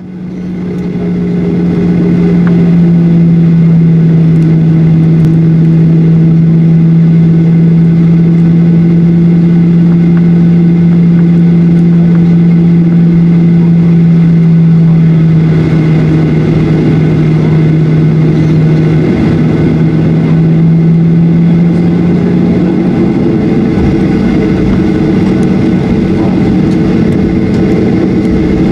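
Boeing 737-800's CFM56-7B jet engines heard from inside the cabin by the wing: a loud steady hum with a strong low tone over a broad rumble, fading in at the start. About two-thirds of the way through the tone rises slightly in pitch and the rumble grows rougher.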